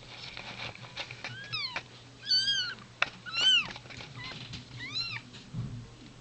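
Cat mewing: four short, high-pitched mews, each rising and falling in pitch, the middle two the loudest.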